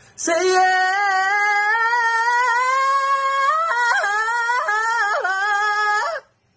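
A man belting one long high sung note for about six seconds, the pitch creeping slowly upward, then cracking and wobbling in several jumps over its last two seconds before cutting off.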